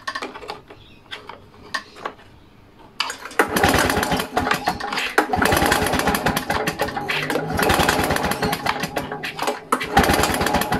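Victa two-stroke lawnmower engine cranked over by its recoil pull-starter, with the spark plug out and a compression gauge in the plug hole, so it turns over without firing: a fast, loud clattering whirr from repeated cord pulls, starting about three seconds in. It is the cranking for a compression test with the decompression valve's restrictor removed, which the gauge reads at about 85 psi.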